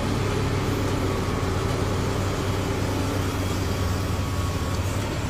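Komatsu PC390 hydraulic excavator's diesel engine running as it digs, a steady deep hum with a heavy noisy wash over it.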